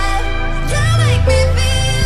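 Background pop music: a sung melody over a deep, steady bass.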